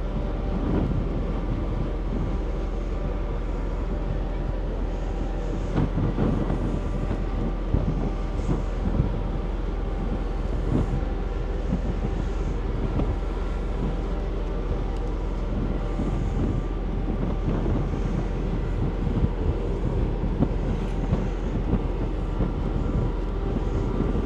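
Steady drone of a car ferry's engines under way, with wind buffeting the microphone in irregular gusts.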